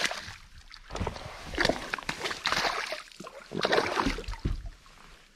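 Water splashing in several bursts as a hooked bass thrashes at the surface beside the boat.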